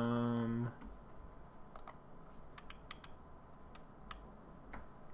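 A man's voice holds a level hum for just under a second at the start, then come a dozen or so sharp, irregular clicks from working a computer.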